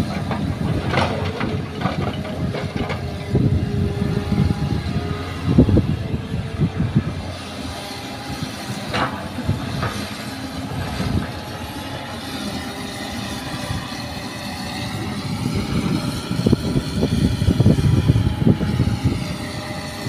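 Hitachi hydraulic crawler excavator running steadily under load while loading soil, its engine note wavering in the second half. A few sharp crashes in the first half, from earth and rock dropping into the steel bed of a dump truck.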